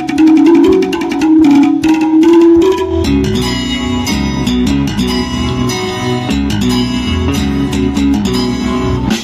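Loud instrumental stage music over a PA system: a stepped lead melody over a steady beat, with bass and fuller backing coming in about three seconds in.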